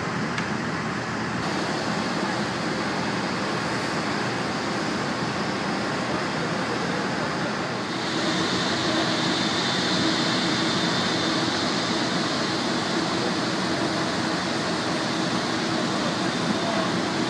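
Steady mechanical rush of airport apron machinery, from ground equipment or aircraft systems running nearby. About halfway through it turns slightly louder, with a steady high whine and a low hum joining in.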